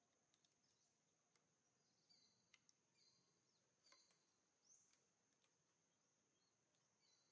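Near silence: faint outdoor ambience with a steady high insect drone, a few brief high chirps and some light clicks.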